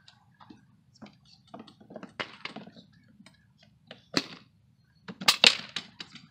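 Air rifles firing on a benchrest line: a sharp crack about four seconds in, then a louder cluster of cracks just after five seconds, with fainter clicks and knocks before them.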